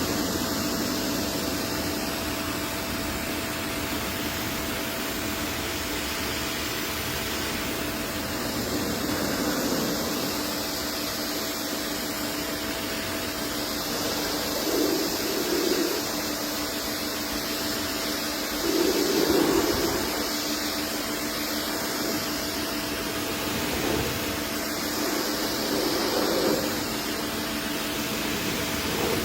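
A machine's motor running steadily with a steady hum and a hiss of air or spray, swelling briefly louder a few times.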